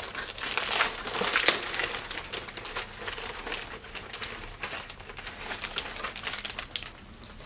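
Clear plastic packaging crinkling and rustling as it is handled and pulled off a handbag. The crackling is busiest in the first couple of seconds, then thins out to occasional rustles.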